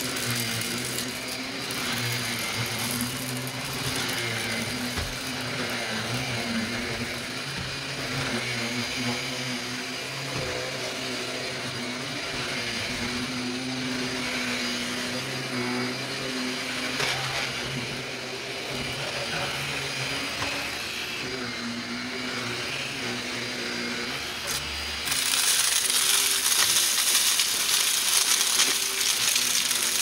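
Shark upright vacuum cleaner running steadily with a humming motor while it is pushed over carpet. About 25 seconds in it gets louder and much hissier as a small motorized brush tool is worked over a fabric surface scattered with debris.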